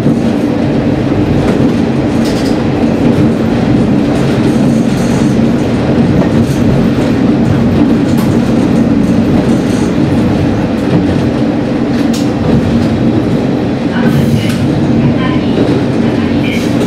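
Sanriku Railway diesel railcar running along the line, heard from inside the car: a steady engine drone, with the wheels clicking over rail joints now and then.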